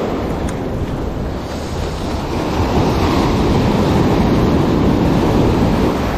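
Ocean surf breaking and washing up the sand at the shoreline, swelling louder a few seconds in as a wave comes in.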